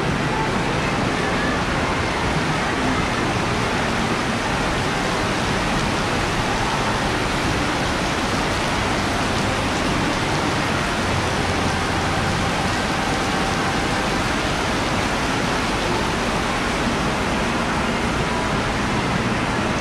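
Heavy rain falling steadily, a loud, even hiss with no let-up.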